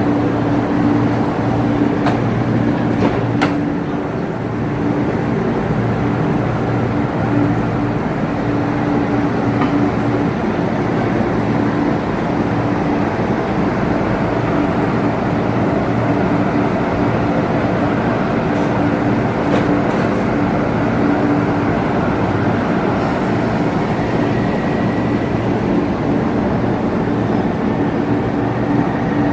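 MLR electric multiple unit sounding steadily at the platform: a constant hum and rumble with a steady low tone, and a few sharp clicks here and there.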